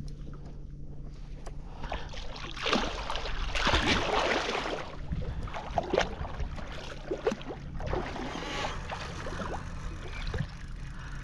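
Water splashing and sloshing at a fishing kayak, loudest for a couple of seconds in the middle, followed by a few sharp knocks.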